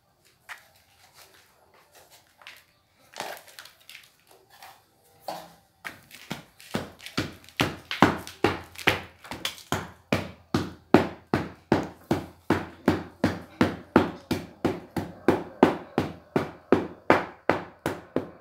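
Repeated knocks of a piece of wood tamping half-damp clay packed around an upturned plastic pot used as a mold. A few scattered taps at first, then a steady beat of about two to three strikes a second from about a third of the way in.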